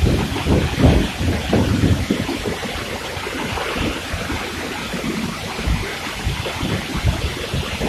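Waterfall pouring down, heard from behind the falling water as a steady rushing noise. Wind and spray buffet the microphone in gusts, strongest about the first second.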